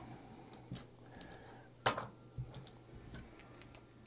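Casino chips clicking together as they are picked up, stacked and slid across the table: a few scattered light clicks, the sharpest about two seconds in, then a run of faint ticks.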